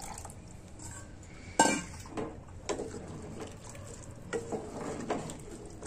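Wooden spatula stirring rice, vegetables and water in a metal patila, knocking and scraping against the pot, with the sharpest knock about one and a half seconds in.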